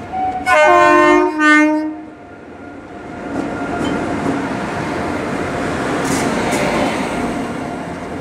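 Horn of an Indian Railways WAP-class electric locomotive sounded in two short blasts about half a second in, then the train rolling slowly along the platform, its wheel noise building with occasional clicks over the rail joints.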